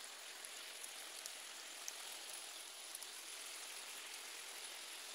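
Chicken karahi sizzling and simmering in its gravy in an iron wok: a steady frying hiss with scattered small pops.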